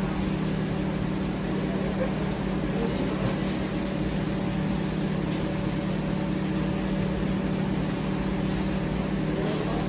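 Steady low machine hum with a fixed droning pitch, from running commercial kitchen equipment.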